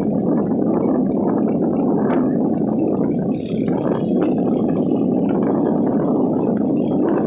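Water gurgling steadily, with small irregular clicks through it.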